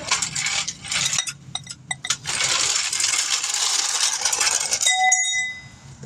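Metal hand tools being handled: sharp clinks and clicks, then a few seconds of continuous rattling, and a single ringing metallic clang about five seconds in.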